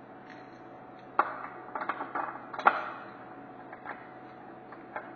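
Metal clinks and clicks of hold-down clamps and a wrench being handled and fitted onto a CNC router's table, a quick cluster of them in the middle with the loudest about two and a half seconds in, over a steady low hum.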